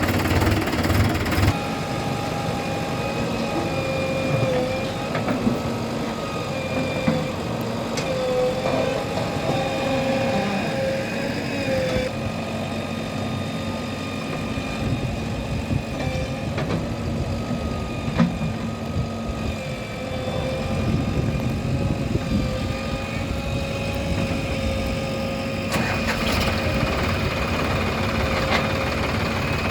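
Engine sound effects of heavy machinery, a backhoe loader and tractors, running with a steady rumble under whining tones that waver in pitch. The sound changes abruptly several times.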